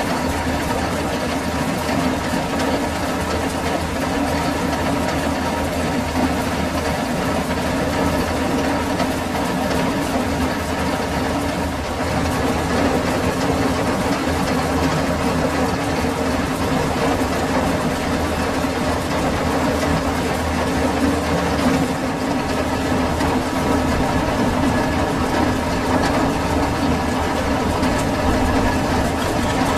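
Metal-working lathe running steadily, a continuous even machine hum from its motor and drive.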